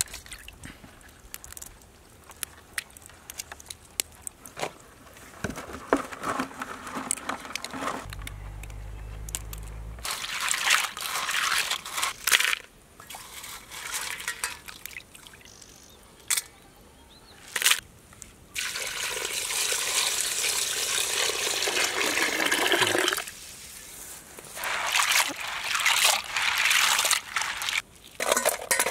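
Water splashing and trickling as cleaned crab pieces are rinsed by hand in a bowl of water. It comes in several spells, the longest lasting about four seconds in the middle.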